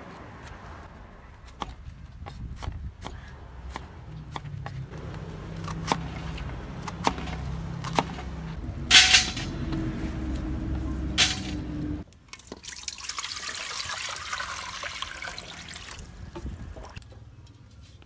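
A kitchen knife cutting elephant foot yam on a wooden chopping board, a scatter of clicks and knocks with a few louder strikes. About two-thirds of the way through, water starts running and splashing steadily over the cut yam pieces in a steel colander for a few seconds.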